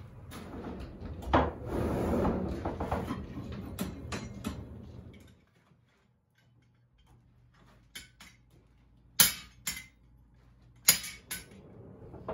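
A rushing noise at a coal forge fire for the first few seconds, cutting off suddenly. After a quiet gap, a blacksmith's hand hammer strikes hot iron on an anvil in a guillotine fuller: about six sharp, ringing blows, spaced half a second to a second apart.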